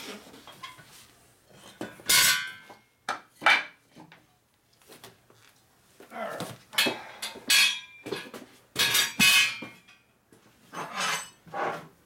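Steel clanks and rattles from a manual tire changer's bar and hand tools being handled and set down: a string of irregular, separate metal impacts with short quiet gaps between.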